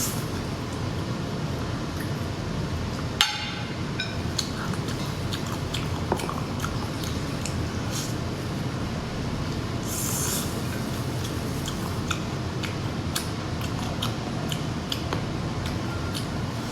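Eating and tableware sounds: soft squishing and scattered clicks of cutlery and dishes over a steady hiss, with a sharp knock about three seconds in and a short hissing burst about ten seconds in.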